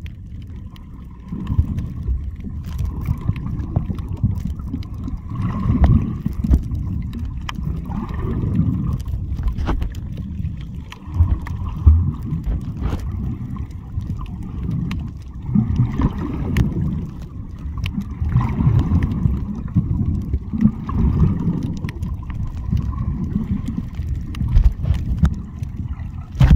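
Muffled underwater sound while snorkeling: a low rumble and slosh of water against the camera, swelling and fading every two to three seconds.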